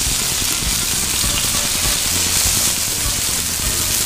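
Corn tortillas with melting cheese and shredded beef birria sizzling steadily on a hot flat-top griddle as consommé is spooned onto them.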